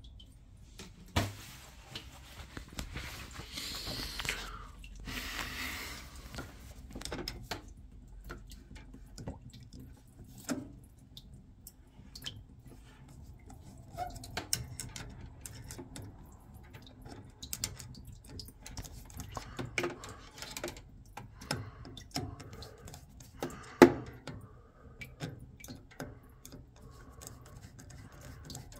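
Scattered small clicks, taps and clatters of hand tools and metal parts as an Ideal Mini C24 combi boiler is worked on, with two short hissing bursts a few seconds in and one sharp knock about three-quarters of the way through.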